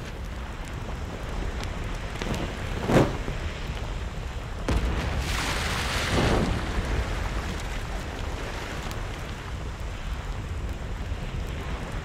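Volcanic fissure eruption: a steady rumble and hiss of lava fountaining, with a short loud surge about three seconds in and a longer one from about five to six and a half seconds.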